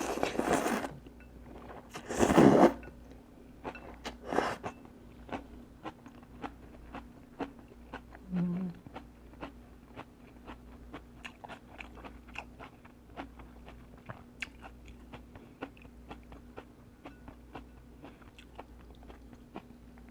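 Close-up eating: a person biting and chewing crispy fried spring rolls (cha gio). There are a few loud rushing noises in the first few seconds, then steady crunchy chewing with many small clicks.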